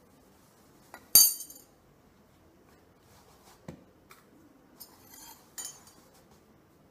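Steel spoon clinking against a steel dish and the counter: one sharp, ringing clink about a second in, then a few lighter taps, a brief soft rubbing and another clink near the end.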